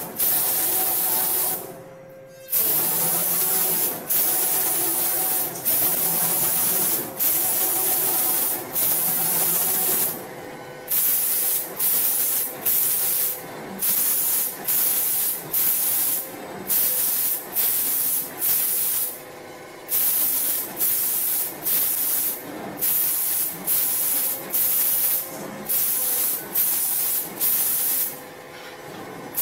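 Five-axis automatic spray painting machine's spray gun hissing in repeated bursts as it coats cabinet doors, cutting on and off about every second or two, with a few longer pauses. A faint steady machine hum runs underneath.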